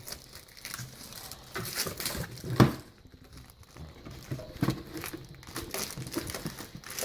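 Packaging crinkling and rustling as a car amplifier is unwrapped and handled, with irregular clicks and one sharp knock about two and a half seconds in.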